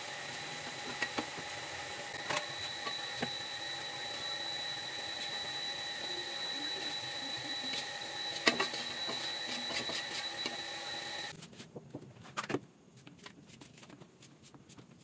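Taro patties frying in oil in a steel wok on a gas stove: a steady sizzle, with a metal spatula scraping and knocking on the wok a few times, loudest about eight seconds in as the patties are lifted out. The sizzle cuts off suddenly about eleven seconds in, leaving a few quieter knife taps on a plate.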